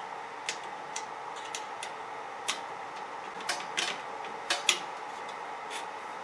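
Irregular light clicks and knocks as a plastic end-stop bracket is handled and slid along a 3D printer's aluminium frame, the loudest pair about four and a half seconds in, over a steady faint hum.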